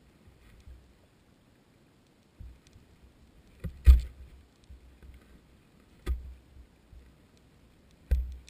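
Knocks and low thuds picked up through the underwater GoPro housing as the dropped camera rig shifts on its line at the bottom: three sharp knocks about two seconds apart, the first the loudest.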